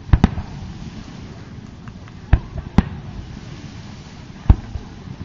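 Aerial fireworks shells bursting, about five sharp booms: two in quick succession at the start, two more about two and a half seconds in, and another near four and a half seconds.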